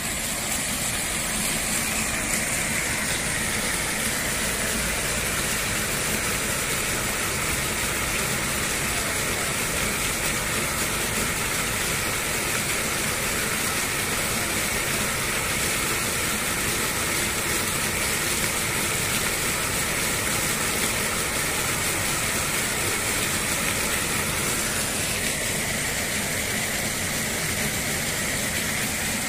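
Small vertical water jets of a pool fountain splashing down onto the water, a steady rushing splash.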